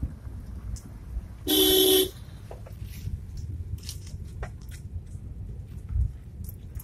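Car horn sounding once for about half a second, a single steady loud tone, over the low steady rumble of a car driving, heard from inside the cabin.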